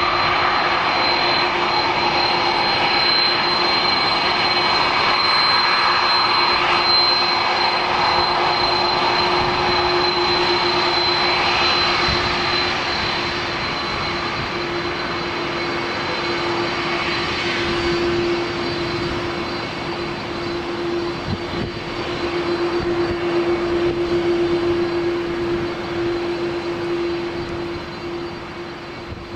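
Airbus A330's turbofan jet engines running while the airliner taxis: a steady rushing noise with a low steady hum and a thin high whine, fading away near the end.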